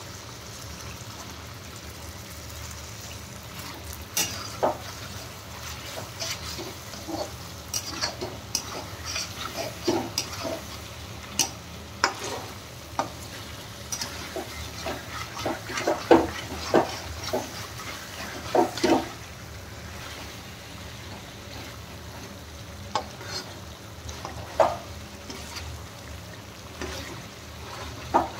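Chicken, onion and tomato sizzling steadily in a kadhai while a slotted spatula stirs and turns them, with irregular scrapes and knocks of the spatula against the pan, busiest a little past the middle.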